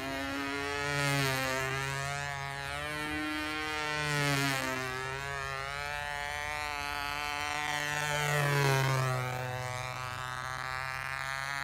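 Radio-controlled model airplane's motor droning in flight, its buzz gliding up and down in pitch and swelling louder as the plane makes passes, loudest about a second in, around four seconds and near nine seconds.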